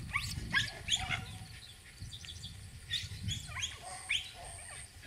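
Beagle puppies whining and yipping: short, high calls that glide sharply in pitch. They come in a cluster near the start and another about three seconds in.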